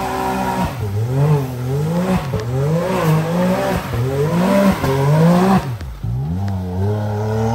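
Side-by-side UTV engine revving on and off the throttle, its pitch climbing and dropping back about six times in quick succession, then settling to a steadier tone near the end.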